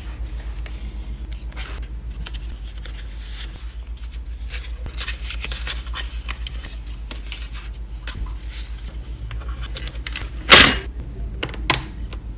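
Small handling clicks and rustles of objects over a steady low hum, then two loud sharp knocks about a second apart near the end.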